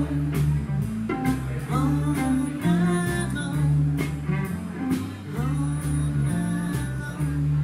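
Live blues band playing: electric guitar, electric bass line and drum kit, with a woman singing over it.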